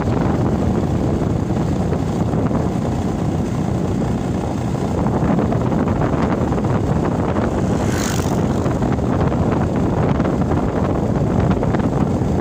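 Wind rushing over the microphone of a moving motorcycle, with its engine running steadily underneath. A brief hiss comes about eight seconds in.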